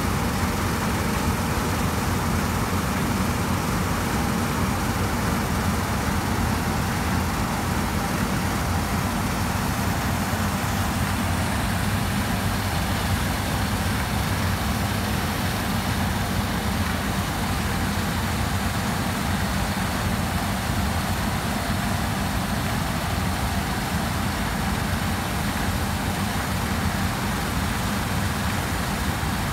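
Combine harvester running steadily, a constant low mechanical rumble with no change in speed.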